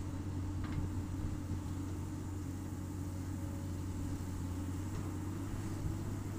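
Komatsu PC200 excavator's diesel engine running steadily with a constant hum while the excavator drags its bucket through soil.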